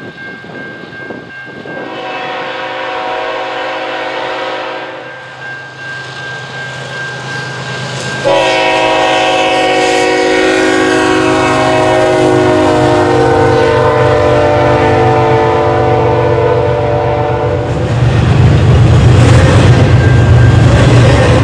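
CN diesel freight locomotive's air horn sounding for a level crossing: a shorter blast about two seconds in, then a louder blast held for about ten seconds as the train closes in. Near the end the locomotive and its double-stack container cars pass close by with a loud low rumble of engine and wheels.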